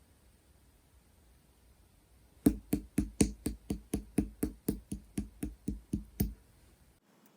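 A rapid series of about fifteen sharp knocks, about four a second, starting a couple of seconds in and stopping shortly before the end.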